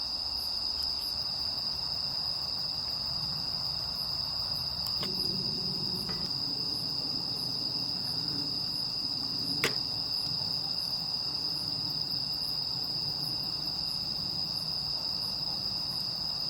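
Crickets trilling in a steady, unbroken high chirr. A single sharp click cuts in about two-thirds of the way through.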